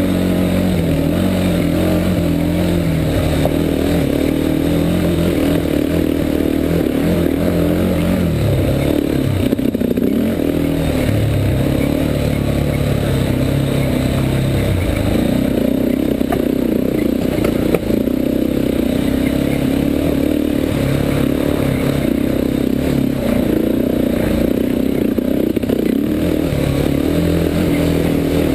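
Yamaha Warrior 350 ATV's single-cylinder four-stroke engine running under load, its pitch rising and falling with throttle and gear changes, with the machine rattling over rough ground.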